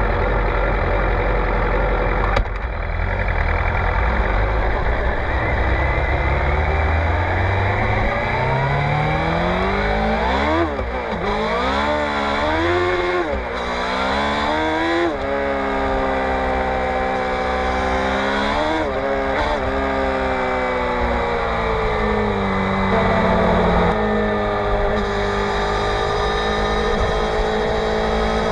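Suzuki GSX-R600 K7's inline-four engine through a Yoshimura R55 slip-on exhaust, riding in traffic. The revs climb steadily, then rise and drop several times in quick succession about a third of the way in as it shifts through the gears, dip again just past the middle, then hold fairly steady with gentle rises and falls.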